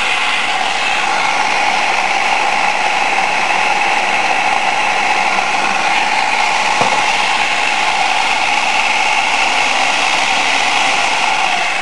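Electric food processor running steadily, its blade chopping a wet coriander, onion and hot-pepper sauce fine.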